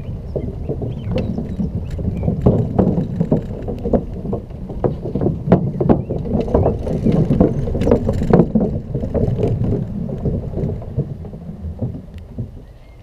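Rumble and clatter from riding a Xiaomi M365 electric scooter over a rough, bumpy path: a steady low rumble with many sharp rattling knocks, with wind on the microphone, fading near the end.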